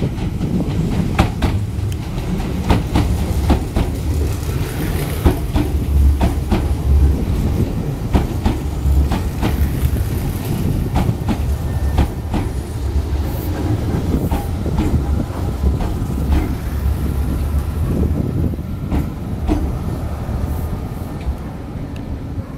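Meitetsu 1000/1200 series electric limited-express train arriving at low speed and rolling past, its wheels clacking over rail joints and points in a rapid, irregular series of clicks above a steady low rumble.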